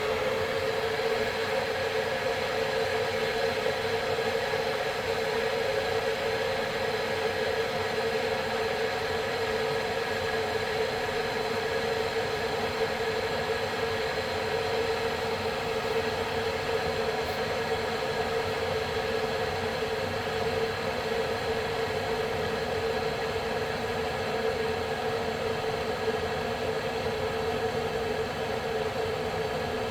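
Aroma 1-litre stainless steel electric kettle heating water that is starting to boil up: a steady rushing noise with a steady hum-like tone, unchanging throughout.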